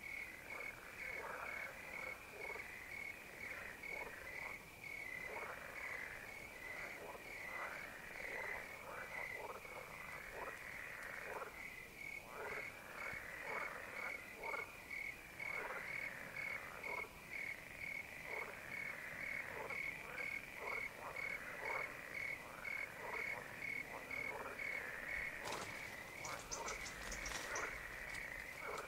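Pond chorus of many frogs calling, their overlapping calls each falling in pitch, over a steady pulsing cricket chirp. A brief high rattle near the end.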